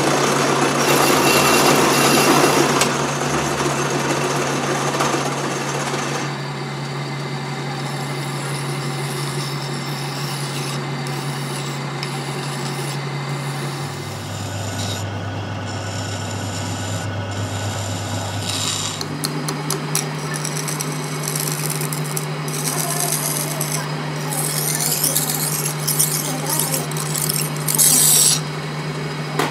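Metal lathe running with a steady hum while a flat hand file is held against the spinning steel shaft, giving a rasping scrape. The scraping is loudest in the first few seconds and in a run of strokes near the end. The hum drops lower for a few seconds midway.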